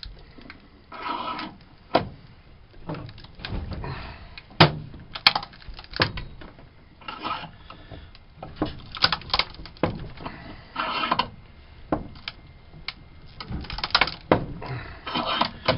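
A 14-megapixel Olympus digital camera being crushed in a bench vise: its plastic body and lens crack and creak under the jaws. Many sharp, irregular clicks and knocks are mixed with a few short scraping stretches.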